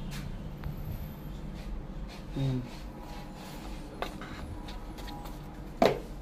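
Hands handling a white cardboard watch box and lifting its paperboard insert out: light rubbing and scraping of card, with a small click about four seconds in and a sharp knock near the end.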